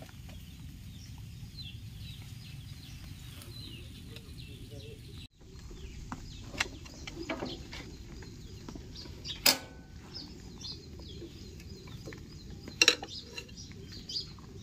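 Steady background noise with faint bird chirps, breaking off suddenly about five seconds in; then scattered metallic clinks and knocks as a steel bar works the V-belts on a Kamco power tiller's pulley, with one sharp strike in the middle and a sharp double strike near the end.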